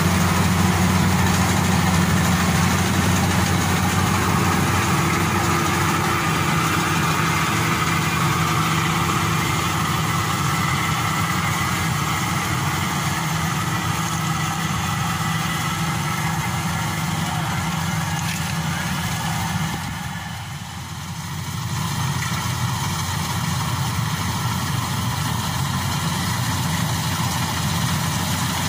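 Maxxi Bimo 102 rice combine harvester running steadily as it cuts and threshes rice, a continuous engine drone with machinery noise over it. The sound dips briefly about two-thirds of the way through.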